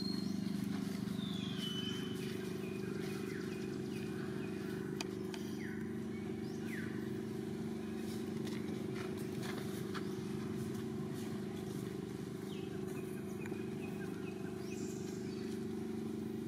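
Steady low engine hum from a running motor, with a few brief high chirps sliding in pitch scattered over it.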